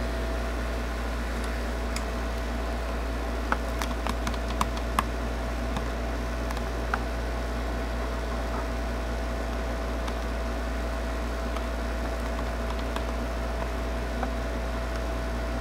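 Steady whirr and hiss of a Kendal 852D+ hot air rework station's blower running, with a low hum underneath. A few light clicks and knocks come in the first half.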